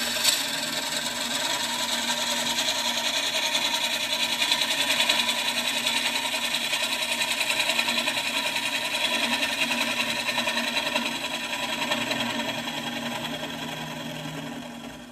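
Gouge cutting into a spinning walnut-and-cherry bowl blank on a wood lathe: a steady cutting noise of wood being sheared away over the lathe's hum. It stops abruptly at the very end as the cut ends.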